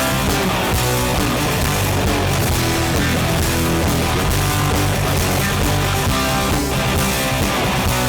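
Live rock band playing an instrumental passage with distorted electric guitars, bass and drums, with no singing.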